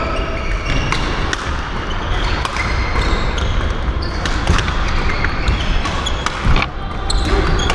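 Badminton doubles rally: rackets smacking the shuttlecock again and again, with shoes squeaking on the court floor. There is a louder thump about six and a half seconds in.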